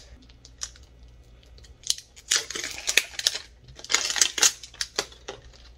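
Plastic wrapping being peeled and torn off a Mini Brands capsule ball, crinkling in two loud bursts about two and four seconds in, with scattered small clicks and taps of handling between.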